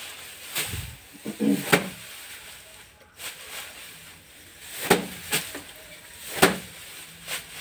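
Paddy being threshed by hand: a bundle of rice stalks is swung down and struck against a slanted wooden plank to knock the grain loose. It gives sharp hits about one to one and a half seconds apart, some louder than others.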